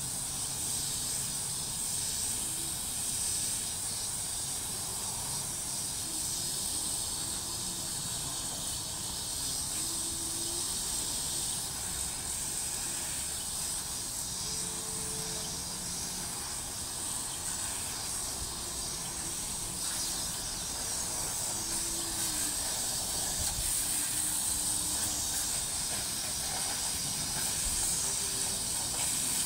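Garden hose pistol-grip spray nozzle shooting a steady jet of water onto mesh screen panels, an even hiss.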